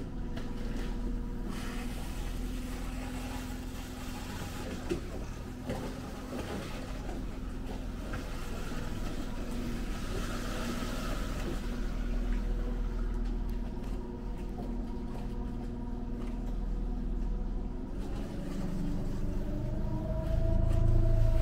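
Small outboard motor of a moat sightseeing boat running steadily at low speed, with a steady hum; near the end the engine note rises and grows louder.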